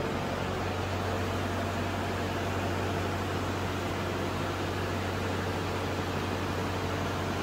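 Hydraulic press power unit, its electric motor and pump running steadily: a low hum with an even hiss over it.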